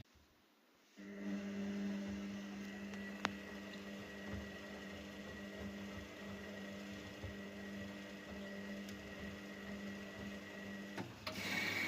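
Zanussi FL984CN washing machine's motor starting about a second in after a short silence, then running with a steady hum and a faint high whine, with one sharp click about three seconds in. Near the end the motor changes and runs louder with a stronger whine.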